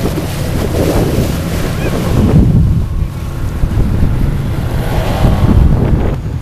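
Wind buffeting the microphone and water rushing and splashing as a small inflatable boat with a 25 hp Yamaha outboard runs across choppy water. The sound changes abruptly about three seconds in and again near the end.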